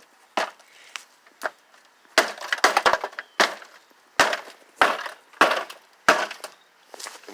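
An old, rusty microwave oven being struck again and again with feet: about a dozen sharp, cracking impacts at irregular spacing, roughly one every half second to second.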